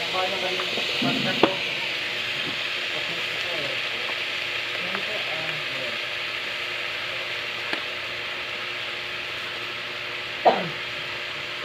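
Steady sizzle of frying in a wok as diced sponge gourd is tipped in from a metal bowl onto sautéing meat and garlic. A few short sharp knocks sound over it, the loudest about ten and a half seconds in.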